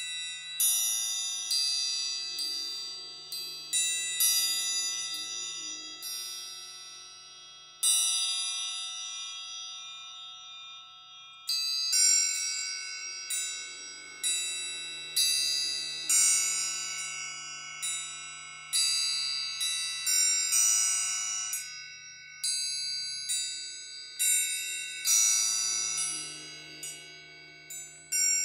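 Several triangles of different sizes struck in a sparse, overlapping pattern, about one stroke every second or two, each stroke ringing on for several seconds with high bright overtones. A large suspended cymbal played with a stick adds a lower, washy ring in stretches.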